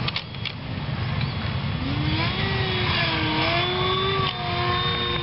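Radio-controlled model jet flying past overhead: its motor whine comes in about two seconds in, rising in pitch and then holding steady, over a steady low rumble.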